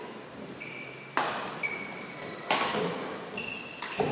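Badminton rally: sharp racket hits on the shuttlecock, two about a second and a half apart and a third near the end, with short high squeaks of court shoes on the floor in between.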